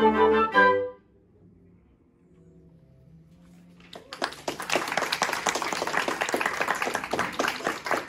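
Double wind quintet of flutes, oboes, clarinets, horns and bassoons holding its final chord, which cuts off about a second in. After a few seconds of hush, applause breaks out and carries on.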